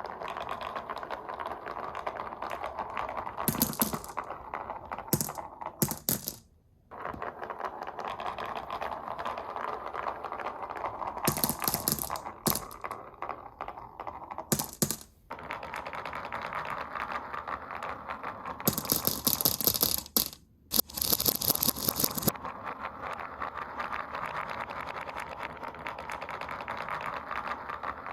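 Glass marbles rolling down a wooden wave-slope marble run: a steady rolling rumble broken by bursts of clattering clicks as marbles knock against the wood and each other. It drops out briefly twice.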